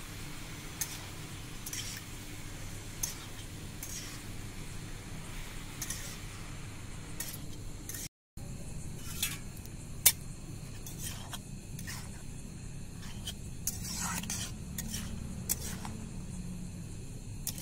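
Metal spatula scraping and clinking against an aluminium kadhai as chopped mushrooms are stirred over a charcoal fire: irregular scrapes and taps, with one sharper clink about ten seconds in.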